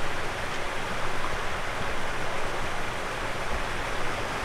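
Steady rushing of a stream's flowing water, an even hiss-like wash with no breaks.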